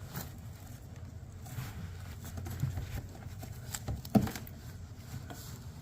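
Faint handling noise: scattered light taps, scrapes and rustles over a low rumble, with one sharper knock about four seconds in.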